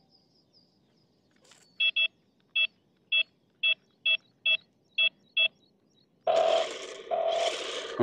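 Toy RC stunt car's electronics beeping as buttons on its remote are pressed: about nine short, identical electronic beeps, roughly half a second apart, then a louder, hissy electronic sound effect in two short parts near the end.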